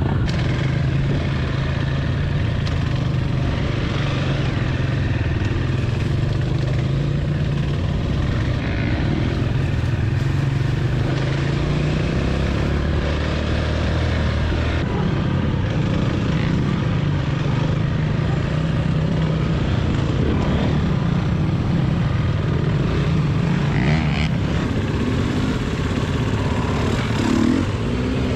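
Dirt bike engine running under way on a trail, its pitch shifting up and down with the throttle.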